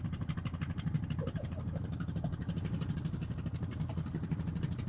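ATV engine idling steadily with an even, rapid pulse.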